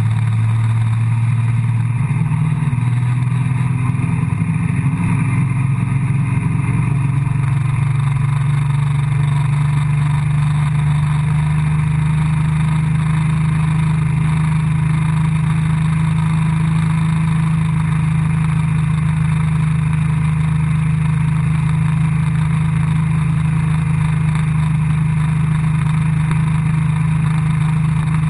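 A motorboat engine towing a water-skier: it revs up over the first several seconds, then runs steadily at speed, with the rush of the churning wake underneath.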